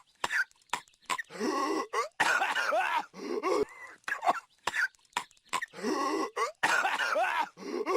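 Patrick Star's cartoon cough from SpongeBob SquarePants: a voiced, raspy hacking cough repeated in a loop. A long run of coughs comes about every three and a half seconds, with short single coughs in between.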